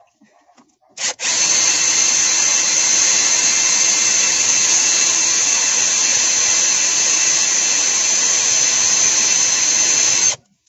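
Cordless drill drilling out a broken engine support bracket bolt in the engine casting. It gives a short blip about a second in, then runs steadily with a constant whine for about nine seconds and stops shortly before the end.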